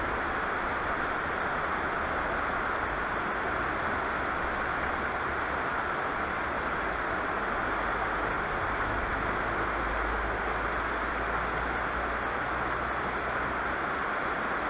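Steady rush of river water pouring through the white water at a low weir.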